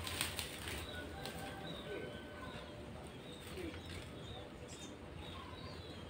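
A short noisy rustle in the first second, then faint, scattered chirps and thin whistles of small birds.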